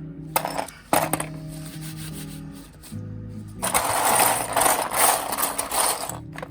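Background music with steady held notes, over sharp plastic clicks and, about halfway through, a few seconds of dense rattling clatter as snap-fit parts of a plastic model kit are pulled apart and handled.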